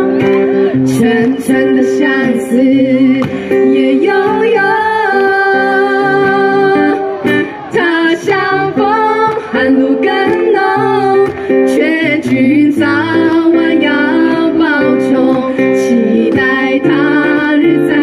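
Women singing live to a strummed acoustic guitar, amplified through the stage microphones.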